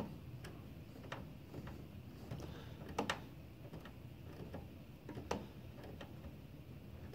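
Faint, irregular clicks and ticks of a screwdriver driving a screw into the cooling fan's mounting bracket, the clearest about three seconds in and again a little after five seconds in.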